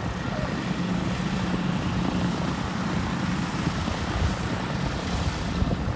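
Aircraft engine giving a steady drone.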